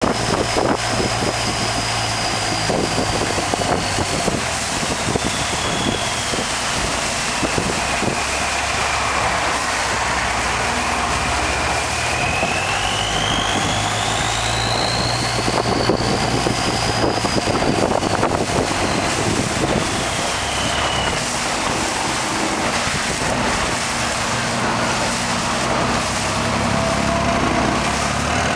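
Boat engine running steadily, with a constant rush of wind and water noise and a thin high whine that slowly rises and falls in pitch.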